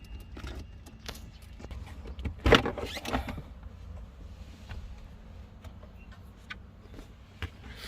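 Hand work on a car's centre-console cool box as it is taken out: scattered clicks and knocks of hard parts, with a loud clatter about two and a half seconds in.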